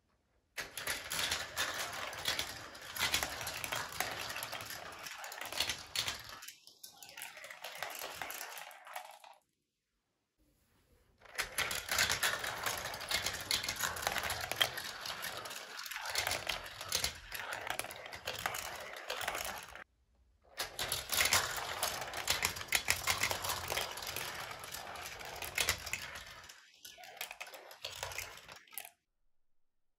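Steel marbles rolling and clattering through a GraviTrax marble run: a dense stream of small clicks and rattles on plastic track and metal rails. The sound breaks off abruptly twice and starts again.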